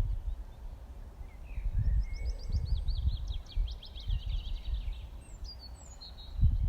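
A songbird sings a fast trill of quickly repeated high notes, followed by a few short high chirps. An uneven low rumble runs underneath and is louder than the song.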